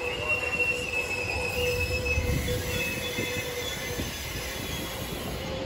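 Pacific Surfliner bilevel passenger cars rolling slowly past, with a low rumble of the wheels on the rails and steady high-pitched squeals from the steel wheels that come and go.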